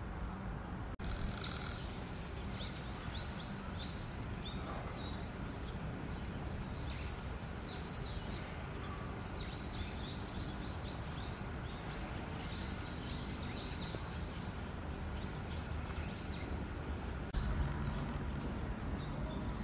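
Small birds chirping again and again, short arched chirps starting about a second in, over a steady low outdoor rumble.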